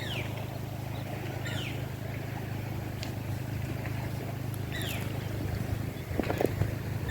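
A bird repeating a short whistled note that falls in pitch, every couple of seconds, over a steady low rumble of wind on the microphone, with a few soft knocks near the end.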